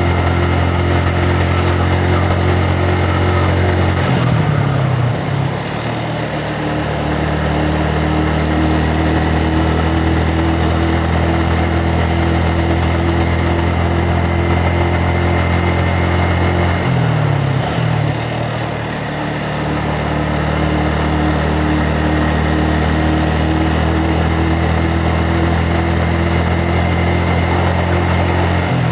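Yamaha Vixion single-cylinder motorcycle engine running under way at steady revs, a sound the rider calls rough. The revs drop and settle at a new steady pitch about four seconds in and again around seventeen seconds.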